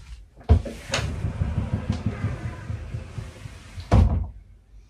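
A cupboard being opened and handled close to the microphone: a knock about half a second in, low rumbling and rustling handling noise, and another knock around four seconds in.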